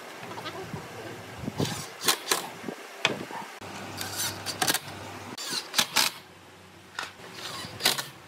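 Cordless impact driver fastening screws into a pine bed frame: a series of sharp clacks and knocks of the tool and the wooden slats, with a brief low motor hum about four seconds in.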